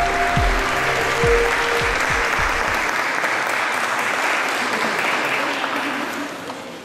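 Audience applauding, fading out near the end. Background music with sustained tones is heard under the applause for the first few seconds, then stops.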